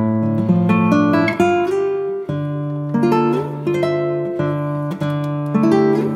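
Acoustic guitar music: plucked notes over a low bass line.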